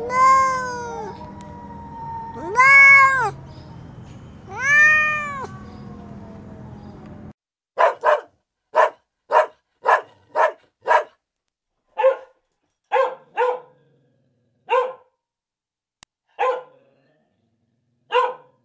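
A cat meowing: three drawn-out meows that rise and fall in pitch. About seven seconds in, the sound gives way to a small curly-coated dog barking, about a dozen short sharp barks, some in quick pairs.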